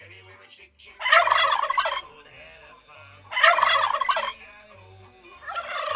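Domestic turkey gobbling: two loud, rattling gobbles about a second each, with a third starting near the end.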